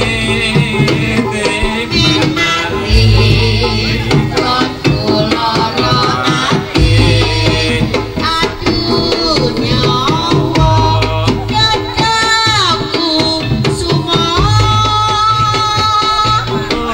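Jaranan folk music: hand drums play a busy pattern over a deep low stroke that comes back about every four seconds, with a wavering melody line above.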